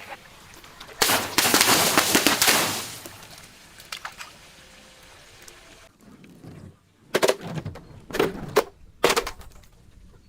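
Glass bottle breaking and crunching: a dense, crackling burst of shattering glass lasting nearly two seconds, then three separate sharp crunches later on.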